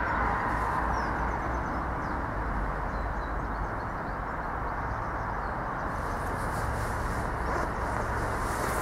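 Steady low rumble of a train, with a few faint bird chirps.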